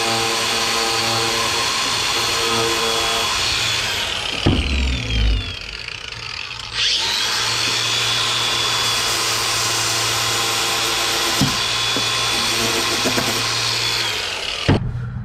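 Makita angle grinder with a wire wheel scrubbing the galvanized zinc coating off a small steel bushing. It is switched off and winds down about 4 seconds in, spins back up about 7 seconds in, then runs steadily and winds down again near the end.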